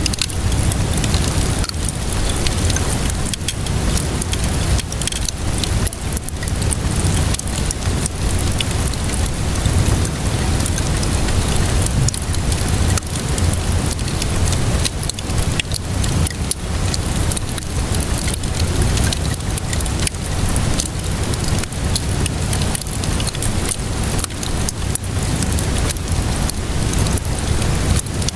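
Wood fire crackling with frequent small pops over a steady hiss of rain and a low rumble.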